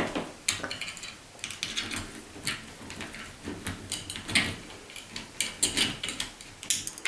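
Irregular small metallic clicks, clinks and short scrapes as the bottom fixing screw is lined up and started into a door handle's backplate.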